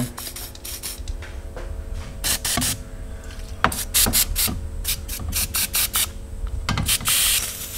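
WD-40 aerosol can sprayed in many short hissing bursts, with one longer spray near the end.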